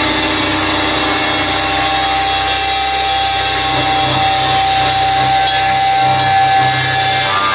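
A live rock band playing loud, heavily distorted music, with dense guitar noise over bass and drums. One steady high note rings through it and stops shortly before the end.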